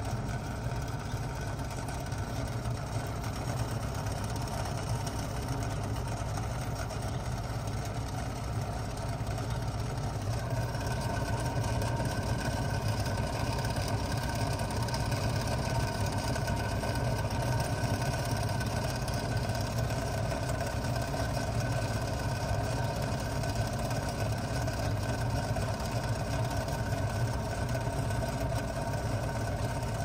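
1995 Bard 3-ton wall-mounted heat pump running in cooling mode: a steady low hum with a mid-pitched whine that grows a little louder about ten seconds in.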